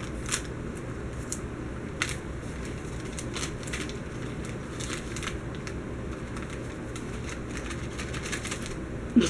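Steady low room hum with a few light clicks and faint rustling, the clearest clicks about half a second and two seconds in.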